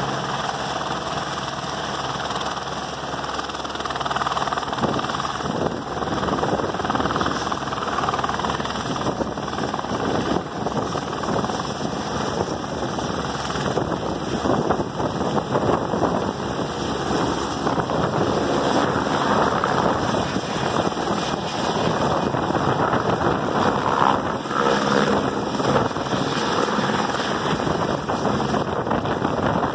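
Light single-rotor helicopter with its turbine and main rotor running at flight power, a steady high turbine whine over the rotor noise. It grows somewhat louder as the helicopter lifts off the pad into a low hover.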